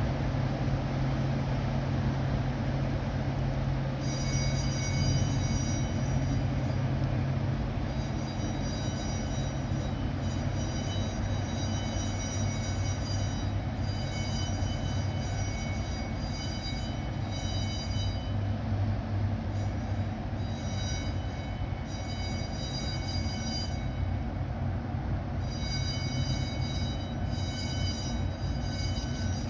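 Low steady drone of the motor vessel Great Republic's diesel engines as the ship moves through the canal. From about four seconds in, a high whine of several tones comes and goes in short stretches.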